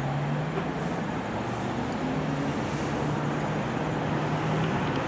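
Steady low vehicle rumble with a faint hum, growing a little louder; it cuts off suddenly just after the end.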